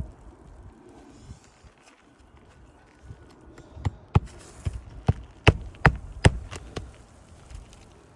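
Hammer and flat pry bar striking on asphalt roof shingles while working nails loose: about eight sharp knocks in quick succession, starting about halfway through.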